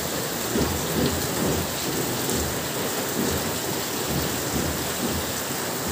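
Steady rain falling on a garden, an even hiss of drops.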